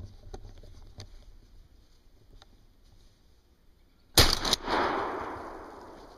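A single gunshot about four seconds in: a sharp crack, then its echo rolling through the woods and fading away over about two seconds.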